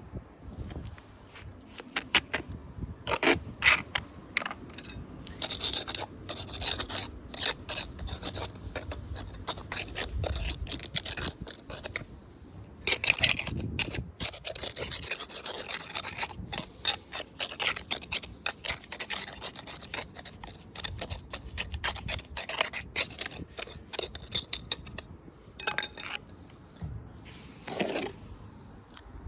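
A hand tool scraping over stone and concrete in many short, irregular strokes.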